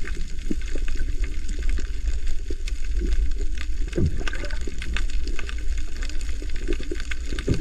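Underwater sound at a submerged camera: steady water rushing and bubbling with a heavy low rumble and many sharp clicks and crackles throughout.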